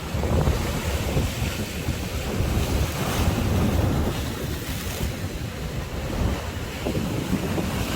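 Sea waves surging and breaking, with strong wind buffeting the microphone in a low rumble.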